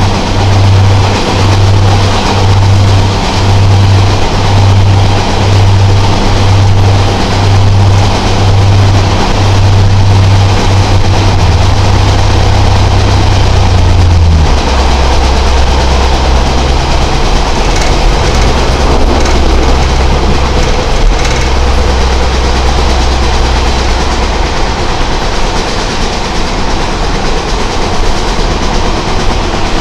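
Class 143 Pacer diesel railbus heard from on board, running along the track. Its underfloor diesel engine drones with a low throb a little over once a second, then settles to a lower, steadier note about halfway through, over a constant rumble of wheels on rails.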